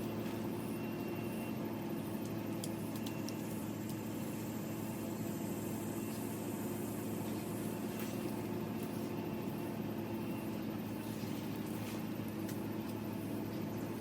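Steady low machine hum, like an engine or motor running without change, with a few faint clicks over it.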